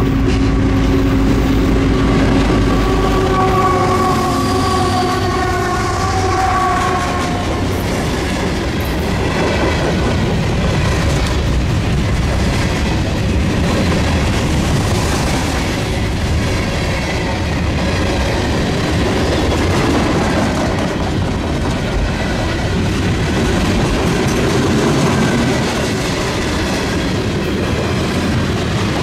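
CSX freight train passing close by, led by a GP39-2 diesel locomotive. The engine runs and the horn sounds a held chord of several notes for about five seconds near the start. After that the hopper and tank cars roll past with steady wheel rumble and rail noise.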